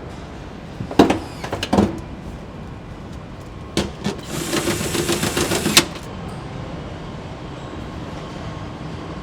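Car-factory assembly noise: a few sharp metallic clanks, then a rapid mechanical rattle of about a second and a half, like a power tool running, over a steady low hum.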